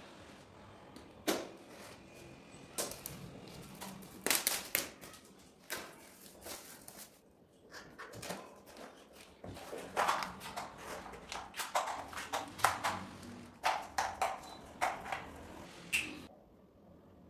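Irregular sharp clicks and taps from plastic modelling-dough tubs being handled, opened and emptied, with the dough set down on a hard tabletop; the taps come thickest in the second half.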